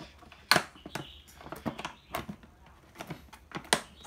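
Latches and lid of a hard plastic cordless-drill carry case being worked open by hand: about half a dozen sharp plastic clicks and knocks, the loudest about half a second in.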